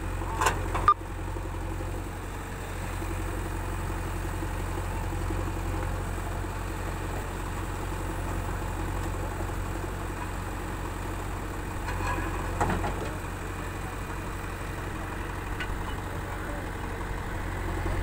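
JCB 3DX backhoe loader's diesel engine running steadily while the backhoe arm is worked. A couple of short knocks come about a second in.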